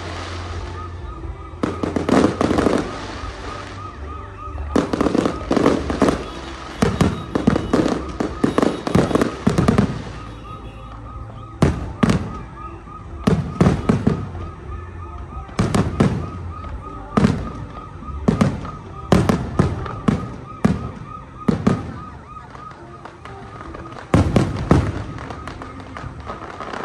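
Fireworks bursting overhead in a string of sharp bangs, each with a trailing rumble. A dense run of bursts comes a few seconds in, then single bursts every second or two.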